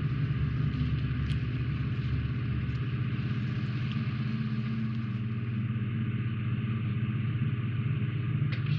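Steady low machine hum with a hiss above it, like a fan or motor running, with a couple of faint clicks of plastic model parts being handled about a second and nearly three seconds in.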